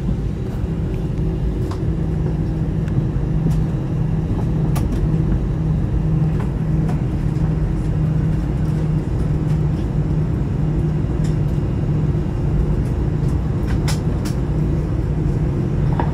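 Airliner cabin noise with the jet engines at idle before takeoff: a steady low rumble and hum, with a few faint clicks and rattles scattered through it.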